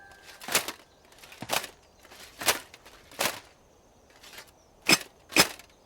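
A series of about eight short, sharp knocks or clicks, irregularly spaced roughly half a second to a second apart, with quiet between them.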